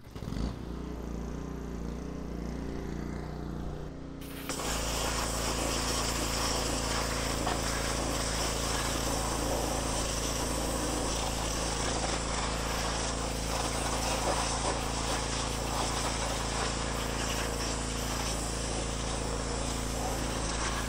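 Pressure washer running with a steady hum; about four and a half seconds in the wet-sandblasting nozzle opens up and a louder, steady hiss of water and sand spraying against the Volkswagen Beetle's steel body takes over, the machine's note shifting as it takes the load.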